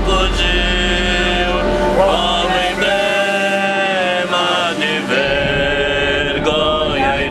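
Several voices singing a slow hymn together in long, held notes. Under them runs a low rumble that drops out about three seconds in and returns about two seconds later.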